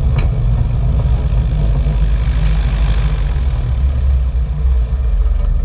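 Piper Pacer's piston engine and propeller running at low power during the landing rollout on a dirt strip: a steady, loud low rumble, heard from outside the airframe.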